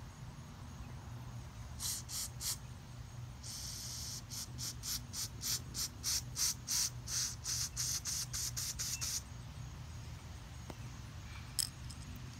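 Short hissing spray bursts used to clean motorcycle carburetor parts: three quick bursts, then a run of about fifteen rapid pulses lasting several seconds.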